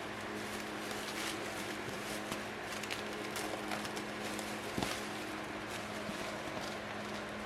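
Handling noises from unboxing a portable gas stove: scattered light clicks and rustles over a steady low hum, with one louder knock about five seconds in.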